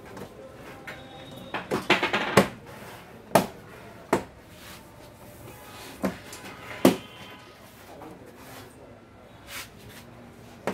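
A series of sharp clicks and knocks from hard objects being handled and set down: a quick cluster about two seconds in, then single knocks spaced a second or two apart.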